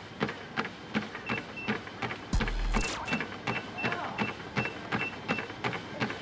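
Rhythmic electronic ticking, about four ticks a second, with a short high beep repeating evenly over it and a brief loud hit about two and a half seconds in.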